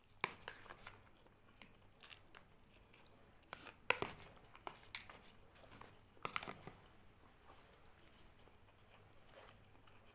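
A person eating close to the microphone: biting and chewing food with crunchy, clicky mouth sounds in clusters over the first seven seconds, loudest about four seconds in, then softer chewing.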